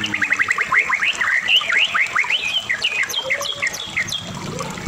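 White-rumped shama (murai batu) singing a fast, varied song. It opens with a rapid trill of short notes, then runs into quick rising and falling whistled sweeps.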